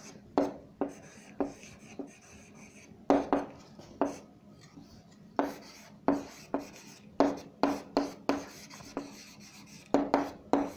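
Writing strokes: a string of short, sharp taps and scratches, irregularly spaced at about two a second, as marks are drawn on a figure.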